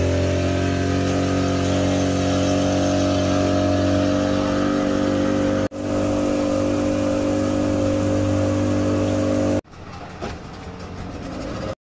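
Boat engine running at a steady pitch, a loud low hum with overtones. It breaks off for a moment about halfway and drops away suddenly near the end, leaving a quieter background.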